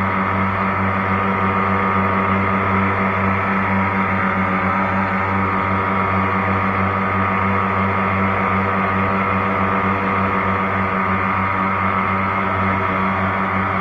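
Jet boat engine running steadily at a constant speed, a droning hum with a fast pulse, heard through a GoPro mounted at the back of the boat.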